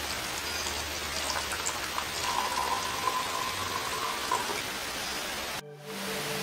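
Water pouring in a thin stream into a jute-wrapped plastic bottle pot of potting mix, over a steady hiss. The sound drops out briefly near the end.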